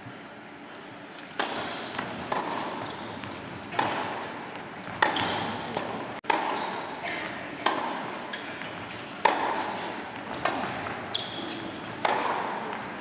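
Tennis ball being struck back and forth by racquets in a rally, a sharp pock about every second, each ringing on in the echo of a large indoor hall.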